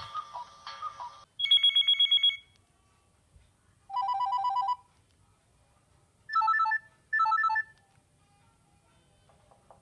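Nokia 6600 ringtones playing one after another. The end of a polyphonic tune gives way to a fast pulsing electronic beep, then a steady two-tone buzz, then two short ring bursts in a row, and another tone starts faintly near the end.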